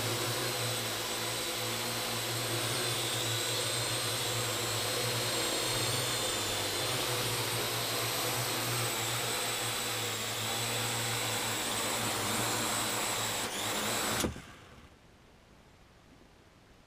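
Small quadcopter drone hovering and flying low, its electric rotors giving a steady whir with a fixed hum. About 14 seconds in the motors cut out abruptly as it lands.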